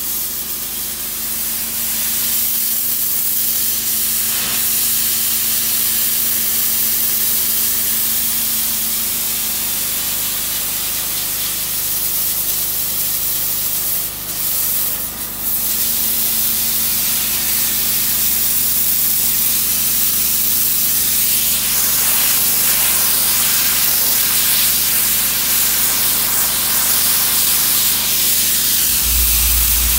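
DOFF superheated-steam cleaning lance jetting steam onto stonework, a loud steady hiss that cuts out briefly twice around the middle. A steady low hum from the machine runs underneath.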